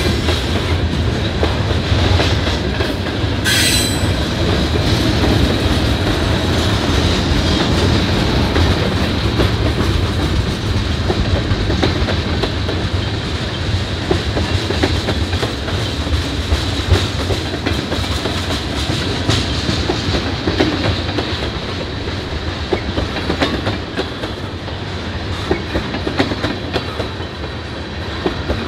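Providence and Worcester freight train of tank cars rolling past: a steady rumble and clickety-clack of wheels over the rail joints. There is a brief high screech about three and a half seconds in.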